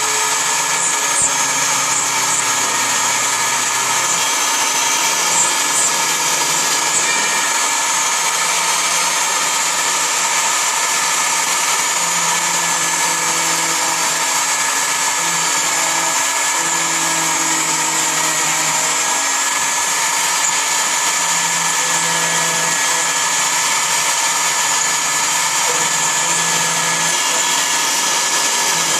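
CNC milling machine running: a steady high-pitched spindle whine over cutting noise, with lower tones that shift up and down every second or so as the tool moves.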